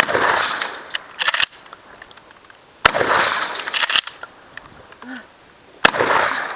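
Three shots from a 12-gauge Mossberg 500 pistol-grip pump shotgun, about three seconds apart, each with a decaying echo. Between shots, short clacks of the pump action being worked to chamber the next shell.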